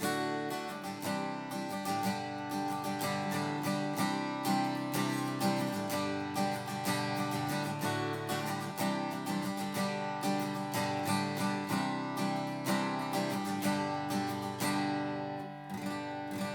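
Chinese-made replica Gibson J-160E acoustic guitar strummed through a run of chords on its stock strings, in a steady rhythm. The tone is mellow and soft, without a lot of volume.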